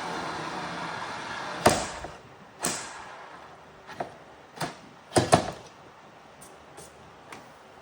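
Power drill winding down after drilling, its whine dropping in pitch and fading in the first second or so; then a series of sharp clacks and knocks, as the drill and bit are handled and set down.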